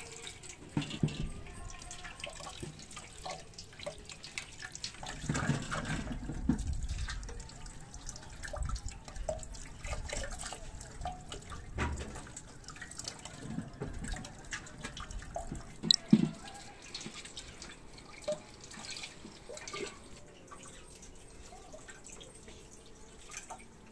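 Tap water running and splashing into a stainless steel sink as potatoes are rinsed, first in a terracotta clay colander, then rubbed clean by hand under the stream, with uneven splashes and small knocks. A couple of sharp knocks, the loudest sounds, come about two-thirds of the way in.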